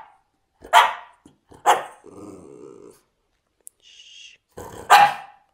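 French bulldog barking: three short, loud barks, about a second in, a second later and near the end, with a low grumbling growl for about a second after the second bark.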